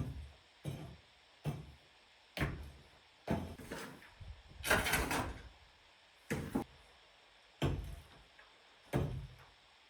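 A series of irregular knocks and thuds, roughly one a second, with one longer, brighter clatter about five seconds in.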